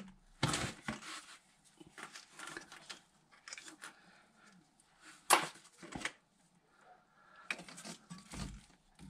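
Scattered light clicks and metallic knocks of a ratchet and socket working a loosened driveshaft bolt out, with one sharp knock about five seconds in.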